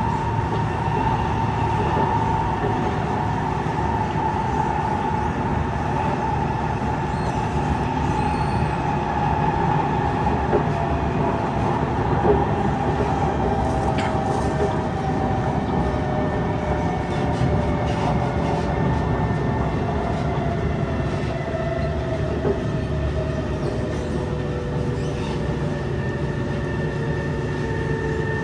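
Kawasaki C151 metro train running, heard from on board: a steady rumble of wheels on track, with a motor whine that slowly falls in pitch.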